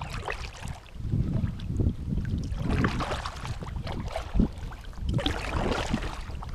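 Kayak on the water: irregular splashing and sloshing of water, with wind rumbling on the microphone.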